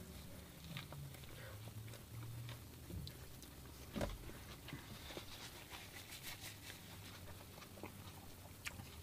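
A person biting into and chewing a soft tortilla chicken wrap: faint, scattered mouth clicks, with one stronger click about four seconds in.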